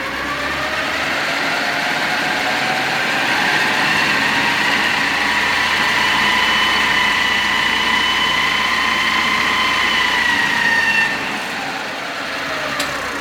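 A machine's whine that rises in pitch over the first few seconds, holds steady, then winds down near the end.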